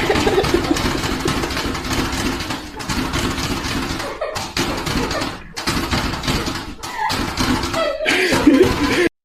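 Voices and laughter over loud, noisy sound, cutting off abruptly near the end.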